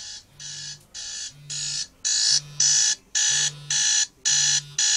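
Smartphone alarm ringing: a repeating electronic tone pattern about twice a second, growing louder over the first two seconds and then holding steady.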